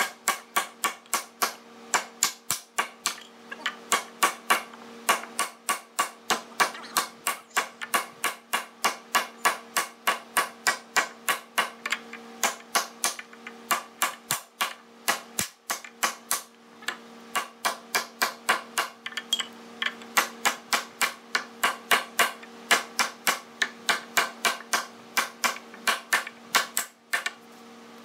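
Rapid, steady blows of a heavy club hammer on a solid hardwood bed rail at its joint with the corner post, about three strikes a second with a few short breaks.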